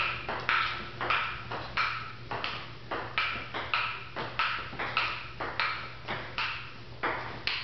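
Table tennis rally: the ping-pong ball clicks off the paddles and the table in quick alternation, about two to three hits a second, each click followed by a short ringing echo.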